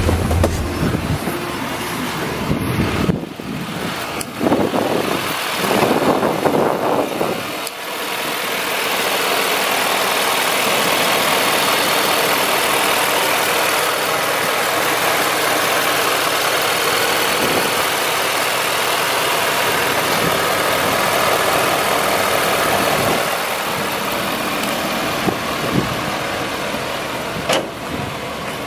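Ford F-450 truck engine idling steadily, heard close with the hood open, with some uneven handling noise in the first few seconds.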